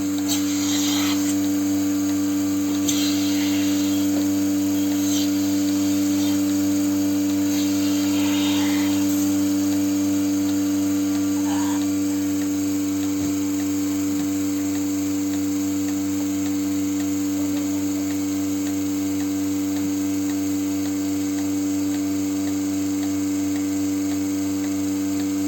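A small electric motor running with a constant steady hum, with a few faint short scrapes and knocks in the first ten seconds.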